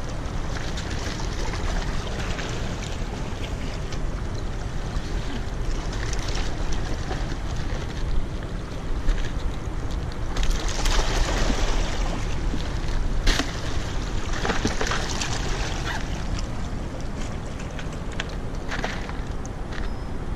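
Steady rush of moving water below the dam, with wind buffeting the microphone. About halfway through come bursts of rustling and a sharp click as a fish is handled into a soft cooler bag.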